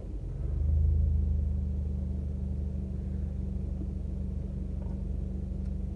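Car engine idling, heard from inside the cabin as a steady low drone; about half a second in it swells briefly, then settles back to an even hum.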